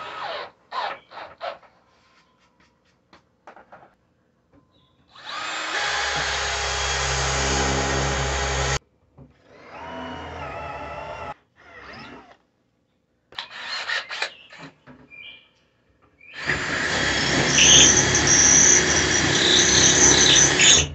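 Cordless drills running in bursts of a few seconds, the two longest at about three and four seconds, with short clicks and knocks in between. The last and loudest run carries a high whine.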